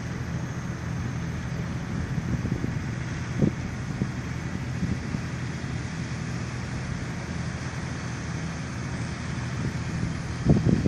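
Tractor engine running steadily, a low hum under wind noise on the microphone, with a brief knock about a third of the way in and louder low buffeting near the end.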